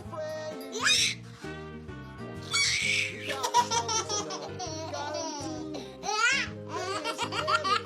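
A baby laughing in repeated high-pitched bursts over background music.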